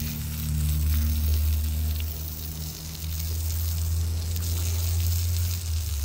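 Sawmill engine running steadily with a low hum and a hiss over it.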